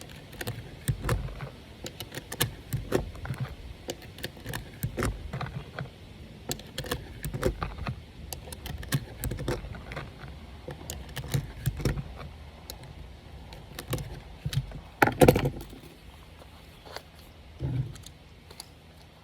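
Irregular metallic clicks and rattles of 9mm cartridges being pressed into a Glock 19 magazine with a magazine loader. A louder, brief sound comes about fifteen seconds in.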